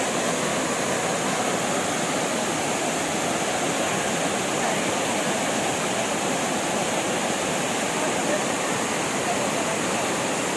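Waterfall's water rushing steadily, an unbroken roar of falling and splashing water.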